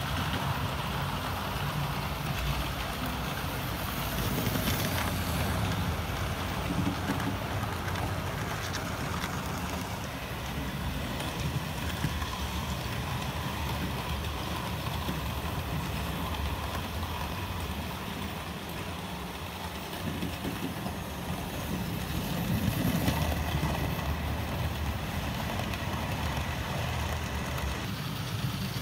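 OO gauge model train, a Gresley A4 locomotive hauling a rake of coaches, running over the layout's track with a steady low rumble of motor and wheels on rail. The rumble eases off about two-thirds through, then swells again.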